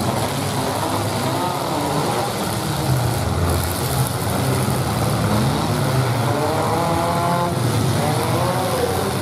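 Engines of several modified compact pickup trucks revving hard, rising and falling in pitch as the trucks ram and shove one another, with a couple of short bangs about three and four seconds in.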